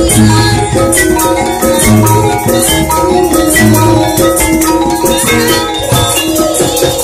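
Javanese gamelan ensemble playing loud: thick metal saron keys and bonang kettle gongs struck hard in quick runs of short ringing notes, over kendang drum strokes and a low boom that returns every second or two.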